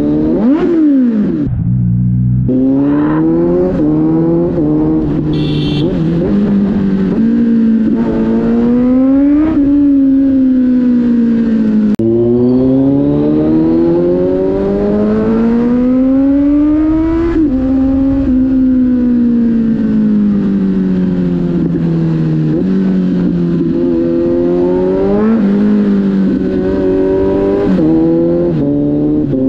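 Kawasaki Z900's inline-four engine running under way, its pitch climbing and falling with the throttle and jumping in sudden steps at gear changes, with a sharp rev blip about a second in.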